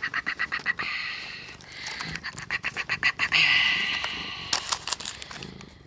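A domestic cat calling, begging for food: rapid pulsing trills about ten a second, twice, then a drawn-out meow. A few sharp clicks follow near the end.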